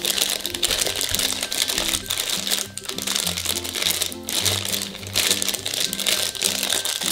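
Crinkling of a black foil blind bag as it is handled and torn open, over upbeat background music with a steady bass line.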